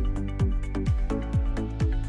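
Background electronic music with a steady kick-drum beat, about two beats a second, over sustained synth chords.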